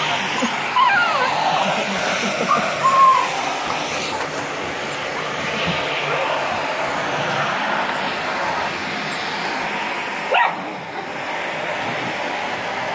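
A vacuum cleaner running with a steady hiss while puppies bite and chase its tube, with a few high puppy whines and yips in the first three seconds and one short, sharp yelp about ten seconds in.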